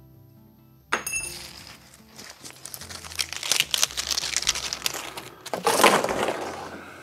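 Plastic packaging straps crinkling and rattling as they are gathered up and bunched by hand, ending in a louder rustle and clatter as they are dropped into a cardboard box. Background music plays underneath.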